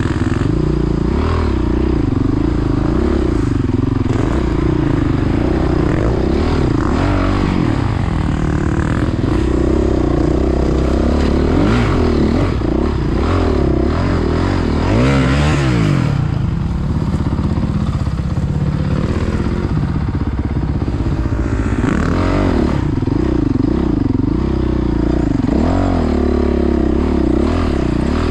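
Dirt bike engine revving up and down constantly under load as it climbs a rough, rocky trail, with clattering and scraping knocks from stones and brush.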